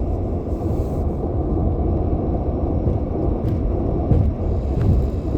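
A loud, steady low rumble with no clear events, the same background noise that runs under the talking on either side.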